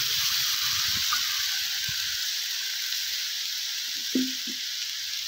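Water poured into a hot cast-iron kazan of fried vegetables and barley, sizzling and hissing steadily as it hits the hot fat. The pour stops after about two seconds, and the hissing carries on, easing slightly.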